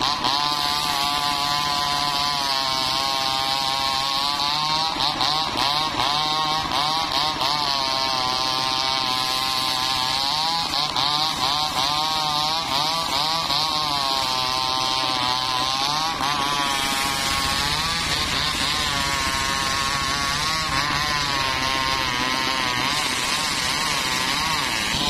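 Homemade circular saw bench ripping a mahogany block: the machine runs loud and steady, its pitch repeatedly dipping and recovering as the blade takes the load of the wood being pushed through, over the hiss of the cut.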